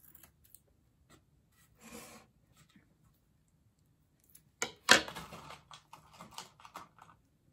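Scissors cutting through wig lace: a short snipping rasp about two seconds in. A sharp click just before five seconds is the loudest sound, followed by a couple of seconds of rustling and scraping as the lace and curly hair are handled.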